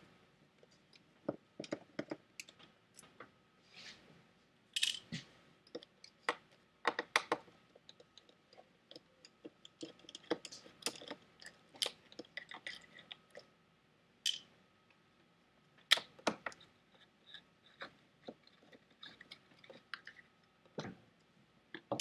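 Quiet, irregular small clicks, ticks and scrapes of a T10 Torx screwdriver working the screws that hold an LCD panel in its metal frame.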